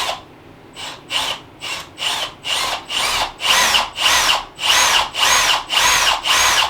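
Power drill boring a hole in a door, its trigger pulsed in quick bursts about twice a second, each run a motor whine that rises and falls; the bursts grow longer toward the end.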